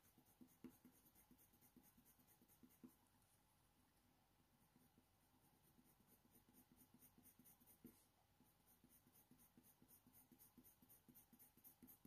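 Faint scratching of a Faber-Castell Polychromos coloured pencil on hot-press watercolour paper, in quick, light back-and-forth blending strokes, with a brief lull about four seconds in.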